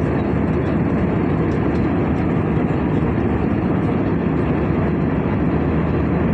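Steady cabin noise of an Airbus A320 in flight: the even rush of air and engines, heavy in the low range.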